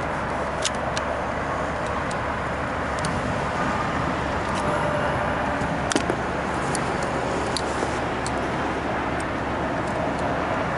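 Steady rushing background noise with scattered light clicks of pliers and small wire connectors being handled as the control is wired.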